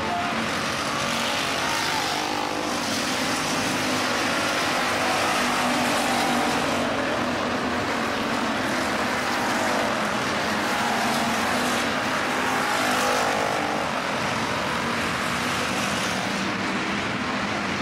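Several IMCA Hobby Stock race cars with V8 engines running together at racing speed around a dirt oval, a steady, dense engine noise. Engine pitch swells and fades as cars go by.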